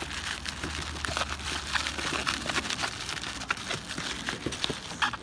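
Bubble wrap crinkling and crackling as a wrapped package is handled and pulled out of a cardboard box, a dense run of small crackles and rustles.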